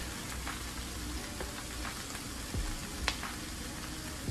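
Chopped cabbage and bacon frying in a pan, a steady sizzle, with a single sharp click about three seconds in.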